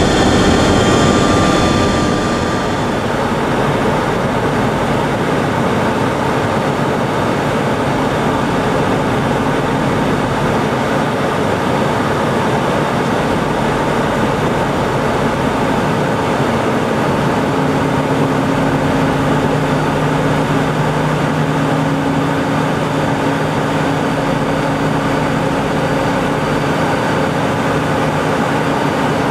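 Steady in-flight noise of a jet aircraft heard from inside, a rushing of airflow and engines. A few high whining tones fade out about two seconds in, and a low steady hum joins about seventeen seconds in.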